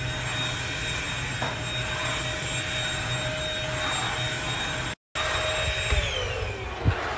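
Blue corded stick vacuum cleaner running steadily with a high whine. About six seconds in, its motor winds down with a falling pitch as it is unplugged at the wall. A brief knock comes near the end.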